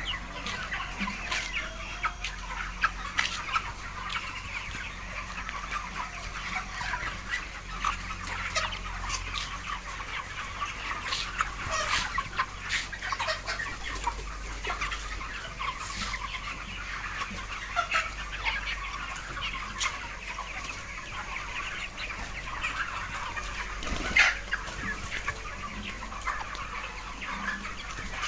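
A large flock of 33-day-old chickens clucking and chirping, a dense overlapping chatter with a few louder calls standing out.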